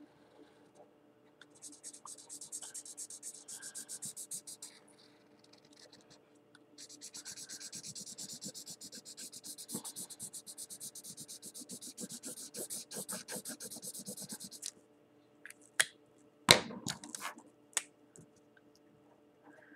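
Felt-tip marker scribbling on paper in quick back-and-forth strokes, in two long spells while a drawing is colored in. A few clicks and a louder knock follow near the end.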